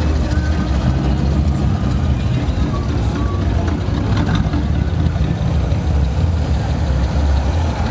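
Engine of a large classic American sedan rolling slowly past at close range, a steady deep rumble. Other cruising cars' engines run underneath.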